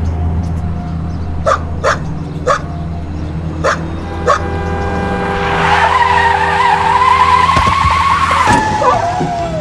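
A dog barks sharply five times, then car tyres screech in a skid for about three seconds, followed by a short falling yelp. A steady low vehicle hum runs underneath.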